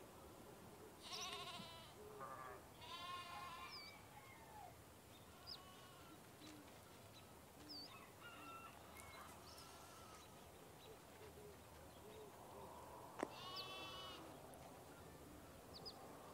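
Kittens mewing: a few short, thin, high calls, two close together early and a louder one about thirteen seconds in, just after a sharp click, with a few faint high chirps in between.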